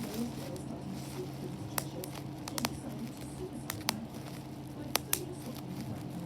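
Bubbles being popped one at a time: about seven sharp, single pops at uneven intervals, some in quick pairs, over a low steady hum and faint crackling.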